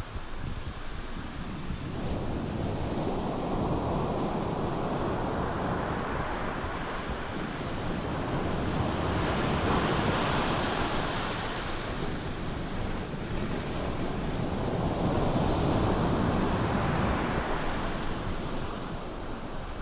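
Ocean surf breaking on a sandy beach: a steady rushing hiss of waves that swells and fades every few seconds.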